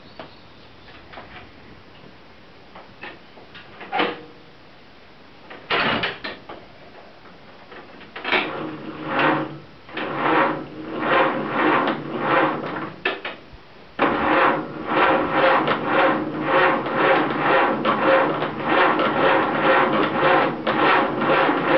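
Ford Model A truck's four-cylinder engine turning over on the starter during a first start attempt. A few clicks come first, then a burst of rhythmic cranking about eight seconds in, a short break, and longer, steadier rhythmic cranking from about fourteen seconds on.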